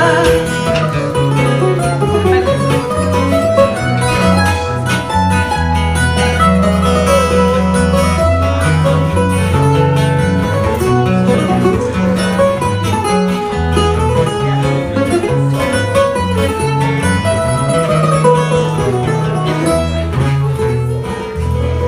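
Instrumental passage of a fado song played on a Portuguese guitar and an acoustic guitar: a picked melody over changing bass notes, with no singing.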